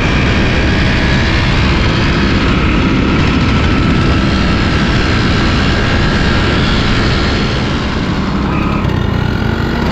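Yamaha RX100's two-stroke single-cylinder engine running steadily as the motorcycle is ridden along, with a heavy low rumble.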